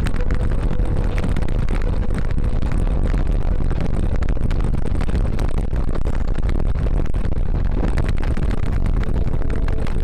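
Steady wind rush and tyre rumble on the microphone of a camera mounted on a mountain bike rolling along a concrete road.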